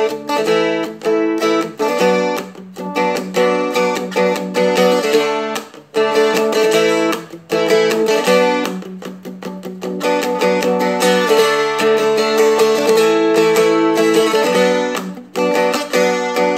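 Seagull Merlin M4 strummed in a quick, steady rhythm through a rock chord progression, the chords changing every second or two with a few brief breaks.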